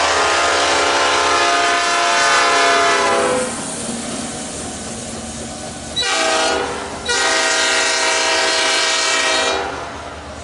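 Nathan Airchime P5 five-chime locomotive horn blowing a chord: a long blast that ends about a third of the way in, a short blast, then another long blast, over the running noise of the train.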